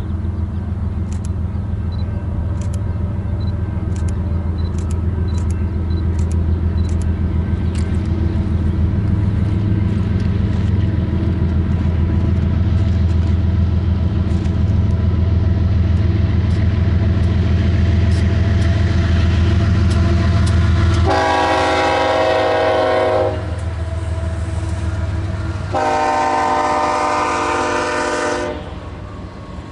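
Diesel locomotive rumbling as a train approaches, then its air horn sounding two long blasts of a chord of several tones, the start of the grade-crossing horn signal.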